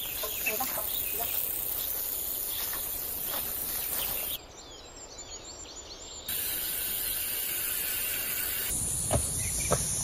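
Countryside outdoor ambience: a steady high insect drone with rustling of leafy plants and a few faint bird calls. The sound drops quieter for about two seconds near the middle.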